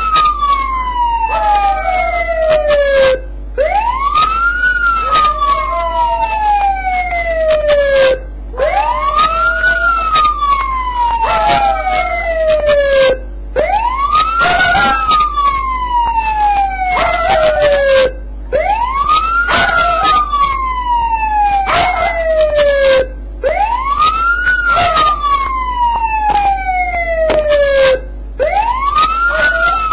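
Police siren wailing in slow repeating cycles about every five seconds, each a quick rise and a long falling glide, while a dog howls along with it.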